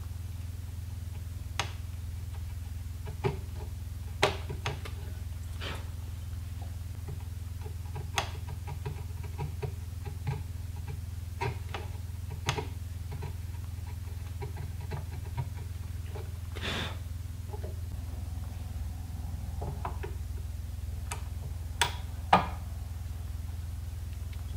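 Scattered sharp clicks, taps and a brief scrape of hand-tool work on a wooden rifle stock: wood being pared from the trigger-guard inlet, with the brass trigger guard test-fitted into it near the end. A steady low hum runs underneath.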